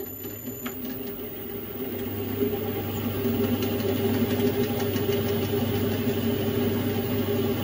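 Metal-working lathe running with its four-jaw chuck spinning: a steady machine hum that builds over the first two or three seconds and then holds.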